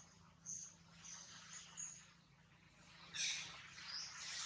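Faint, short, high bird chirps, with a louder scratchy burst about three seconds in.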